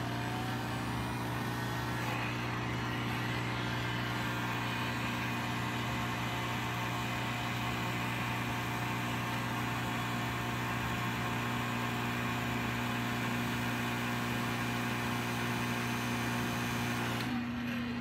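Handheld electric heat gun blowing hot air, a steady fan whoosh over a motor hum. It is switched off about 17 seconds in, the whir cutting out and the motor winding down in pitch.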